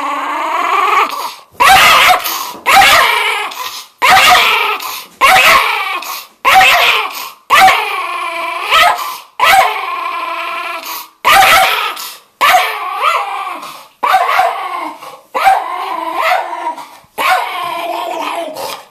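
Schnauzer barking angrily over and over, about one snarling bark a second, each trailing off into a pitched whine. It opens in the middle of a long, drawn-out whining growl. This is an irritated dog's warning.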